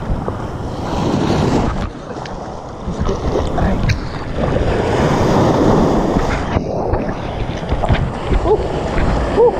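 Rough-sea waves breaking over a shore rock and surging around an action camera held at water level, with wind buffeting the microphone. The sound goes briefly muffled about two-thirds of the way in.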